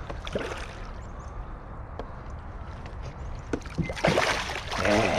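Kayak paddling and handling noise on the water: low steady rumble with a few small knocks, then about four seconds in a sudden louder rush of water and handling commotion as a northern pike strikes, with a short voice-like exclamation near the end.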